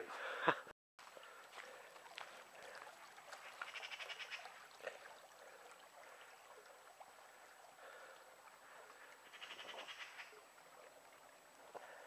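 Faint sound of running on a wet, muddy woodland trail, with two short high-pitched sounds about four and ten seconds in.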